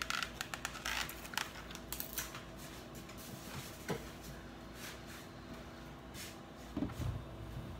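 Scattered clicks, taps and short rustles of food and packaging being handled in a small kitchen, busiest in the first couple of seconds, with a refrigerator door opened about four seconds in.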